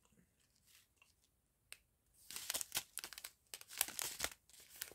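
Thin plastic bags of round diamond-painting drills crinkling as they are handled, in irregular crackles that start about two seconds in after a near-quiet stretch.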